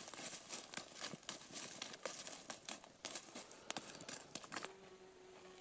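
Crackling and clattering of a stick raking through a wood campfire's burning embers and charred sticks, a dense run of sharp crackles that stops about five seconds in.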